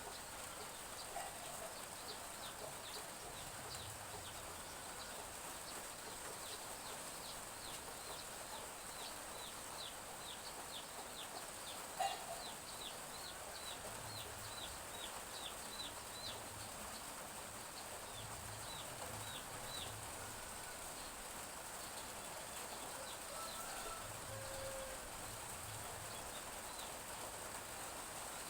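Chicks peeping: strings of short, high, falling peeps, thick for most of the clip and thinning out near the end. A few soft lower hen clucks and one sharp tick come through over a steady hiss of light drizzle.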